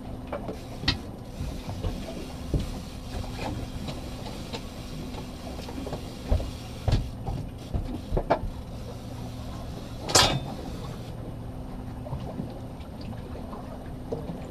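Boat's outboard motor running steadily at trolling speed as a low, even hum, with scattered knocks and clicks and one brief louder rush of noise about ten seconds in.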